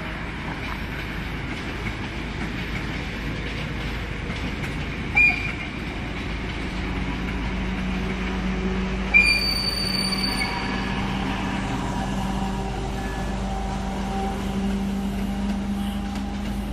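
Steam-hauled vintage passenger train rolling past, its wheels running steadily on the rails. Two short, sharp high-pitched squeaks come about five and nine seconds in.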